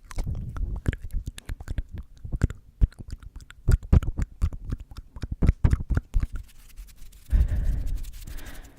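Rapid close-microphone ASMR trigger sounds: a fast, irregular run of sharp clicks and pops with low thumps against the microphone, then, about seven seconds in, a breathy rush of air lasting a second and a half.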